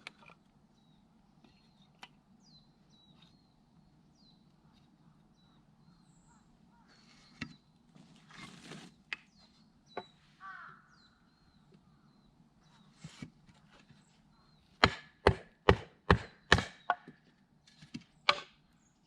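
Firewood being split by hand: a few scattered sharp knocks of a blade into wood, then a quick run of about six strikes a few tenths of a second apart, and two more near the end.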